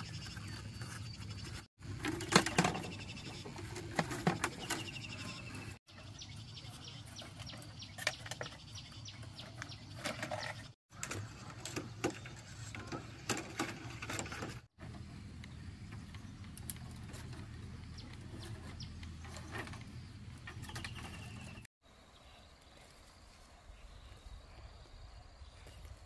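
Split bamboo strips clicking and scraping against each other as they are woven by hand into a basket, in a run of short separate clips. Near the end it gives way to a quieter steady outdoor background.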